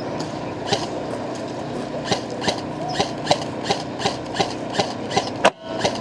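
Airsoft guns firing, a string of short pops about three a second over a steady hum. A louder crack comes near the end, and the sound drops out briefly after it.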